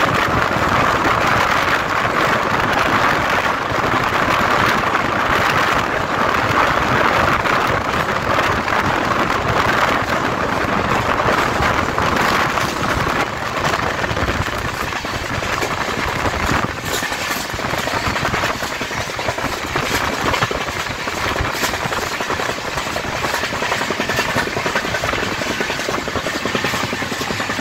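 Passenger train in motion: the steady rumble and rapid clatter of wheels on track and a rattling coach, a little quieter in the second half.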